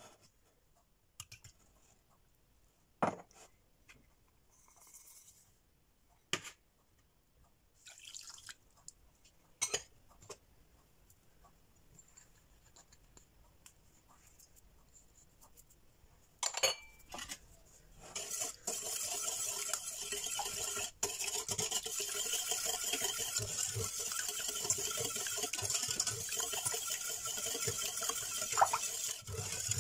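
A few separate knocks and clinks of a stainless steel saucepan and bowls as ingredients go in. Then, about two-thirds of the way through, a wire whisk starts beating eggs, sugar and lemon juice in the saucepan: a fast, steady scraping and rattling of metal on metal.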